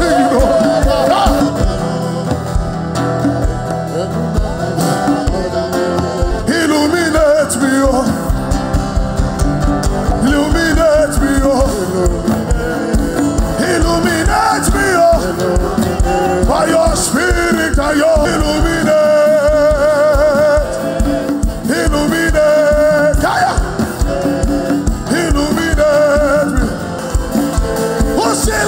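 Worship music: a voice sings drawn-out, wavering lines over a band with a fast, steady drum beat.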